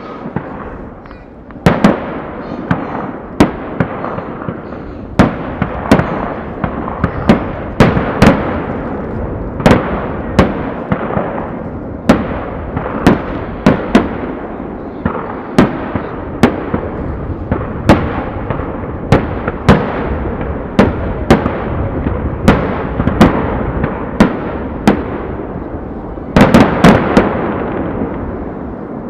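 Aerial fireworks display: shells bursting in quick succession, sharp booms about one or two a second over a continuous rumble, with a dense cluster of reports near the end.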